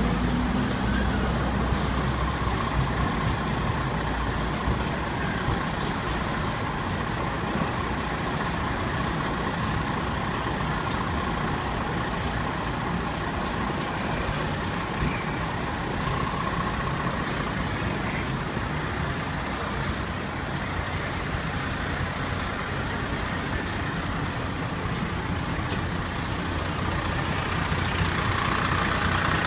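A fire ladder truck's diesel engine idling steadily close by, with street traffic noise around it.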